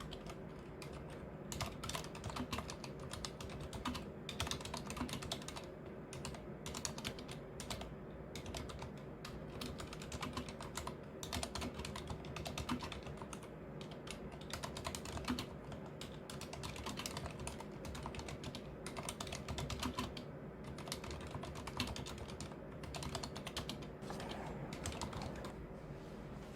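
Continuous typing on a Leopold FC660M mechanical keyboard with unlubricated Cherry MX Silent Red switches: a dense, irregular run of keystrokes.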